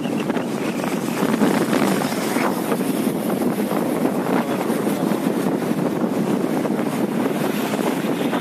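Wind rushing over the microphone of a camera riding in a moving vehicle, mixed with road noise, a steady unbroken rush.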